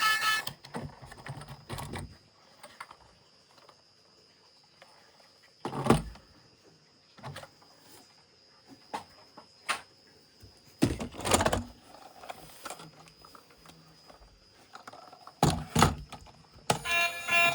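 Plastic toy vehicles and packaging being handled: scattered knocks, clicks and light rustles, with louder knocks about six seconds in, around eleven seconds and near the end. A faint steady high tone runs underneath.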